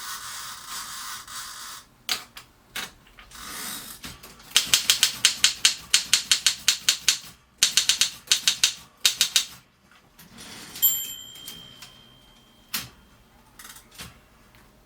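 1950 Mercedes office typewriter: a run of sharp keystrokes at about four to five a second, pausing once, then a single ringing tone about eleven seconds in, ended by a thump.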